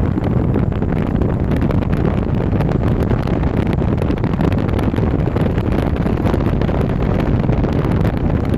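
Steady wind rushing over the microphone from a moving car, with the low rumble of the car's road noise underneath.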